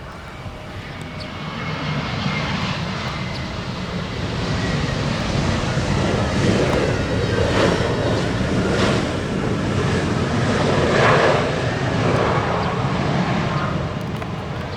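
Jet airliner's engines running as the plane passes close by, a deep rumble with a faint steady whine that grows louder over the first couple of seconds and stays strong before cutting off suddenly.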